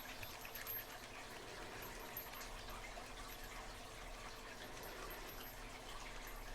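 Faint, fine clicking and scraping of a tubular lock pick being turned and pressed in a high-security tubular lock while picking, over a steady low hum.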